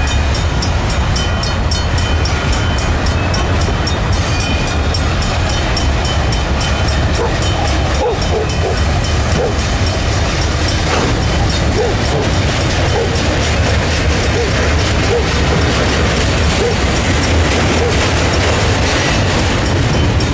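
Freight cars rolling past: a steady rumble of steel wheels on rail, with short squeaks from the wheels from about a third of the way in.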